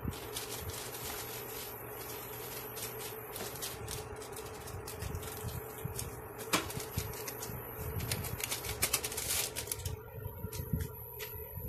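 Meat sizzling and crackling in its juices in a pot on an induction cooktop, over the cooktop's steady fan hum. The crackle thins out near the end.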